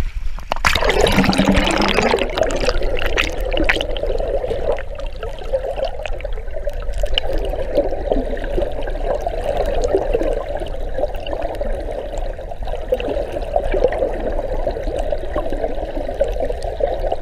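Fast-flowing stream water heard with the microphone submerged: a muffled, steady underwater rush. It follows a splash about a second in as the camera goes under.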